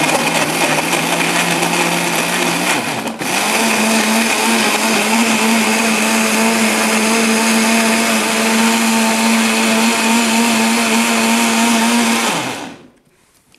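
Countertop blender running, pureeing sweet potato, a collard green leaf and ice-cold water. About three seconds in it cuts out for a moment and comes back at a higher pitch, then runs steadily until it is switched off near the end and winds down.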